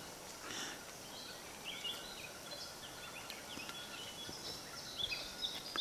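Small birds chirping: a few short high notes about two seconds in and a run of them near the end, over faint steady background noise.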